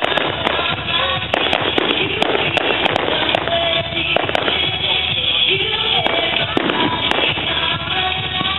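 Fireworks display: a rapid run of bangs and crackles from exploding shells, over music playing at the same time.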